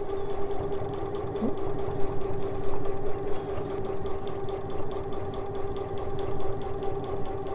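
Janome sewing machine stitching at a steady, constant speed, sewing a circle with a circular sewing attachment: an even motor hum with the needle's fast, regular stitching clatter.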